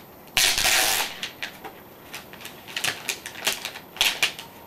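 Clear plastic protective wrap being ripped and peeled off a new router. A loud tearing rip comes about half a second in and lasts about half a second, followed by scattered crinkles and crackles of the plastic.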